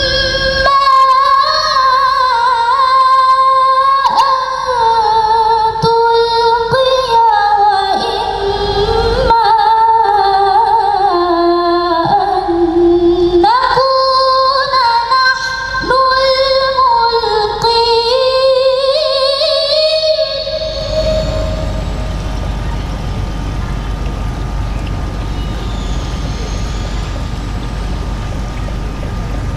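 A woman's voice reciting the Quran in a melodic, drawn-out style: long held phrases with ornamented turns that glide up and down, ending about 20 seconds in. After that only a steady low background noise remains.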